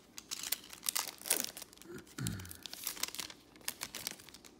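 Crinkling and rustling of a foil trading-card pack wrapper and the cards being handled in gloved hands, a run of quick irregular crackles. A brief low hum falls in pitch about halfway through.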